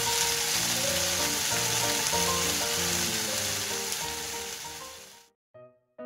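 Gochujang-marinated pork belly sizzling steadily in a nonstick frying pan, fading out about five seconds in.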